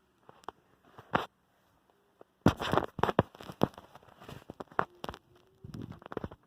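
A boy making deliberately annoying noises: a string of irregular sharp clicks and short pops, sparse at first and coming thick and fast from a couple of seconds in.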